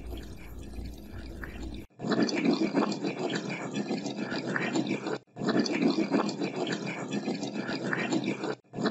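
Noise of running tap water, filtered for voices, played back as a short excerpt three times in a row with brief breaks between passes. It is the recording in which a spirit voice is claimed to say "working up to it for Grant". It is preceded by about two seconds of low hum and room noise.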